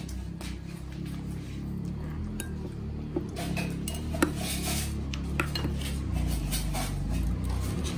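A spoon clinking and scraping against a bowl as someone eats, with a few sharper clinks in the middle, over a steady low hum.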